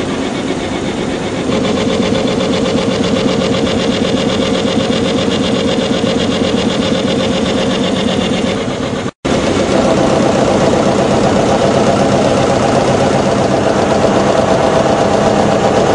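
Large reciprocating gas compressor running: a loud, steady mechanical clatter with a fast, even beat. The sound drops out for an instant just after nine seconds, then carries on with a slightly different tone.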